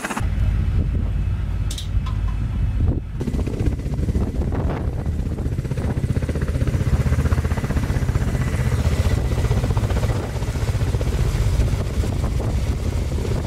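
Kamov Ka-52 attack helicopters running and flying low, their coaxial rotors beating in a steady, rapid low pulse with engine hiss above it. A brief dip comes about three seconds in.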